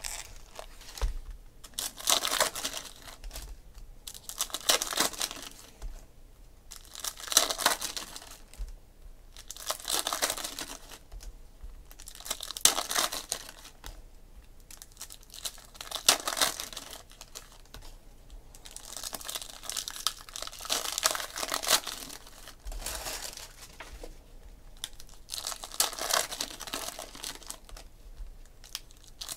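Foil trading-card pack wrappers being torn open and crinkled, one pack after another, in short bursts every two to three seconds.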